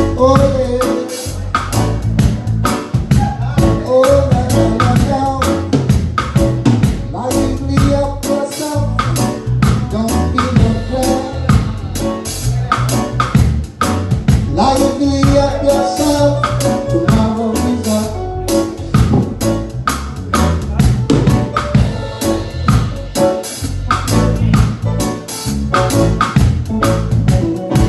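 Live roots reggae band playing a steady groove, with the drum kit's snare, kick and cymbals up close and loud.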